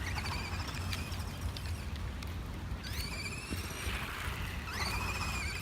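Remote-control buggy's electric motor whining as it drives, the pitch rising sharply about three seconds in as it speeds up, then holding, over a steady low rumble.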